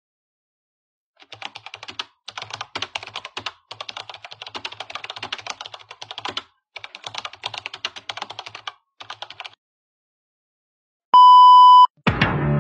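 Computer keyboard typing sound effect: fast, dense key clicks in several bursts with short gaps. A short steady electronic beep follows near the end, and music starts just before the end.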